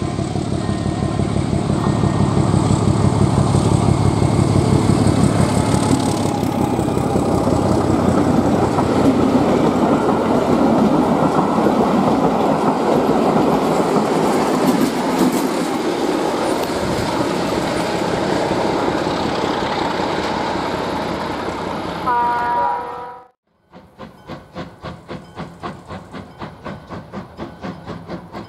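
Diesel locomotive hauling a train past, its engine humming steadily at first, then wheels clattering rhythmically over rail joints, with a short blast of the horn about 22 seconds in. After a sudden cut, a class 52 2-10-0 steam locomotive chuffs in slow, even beats.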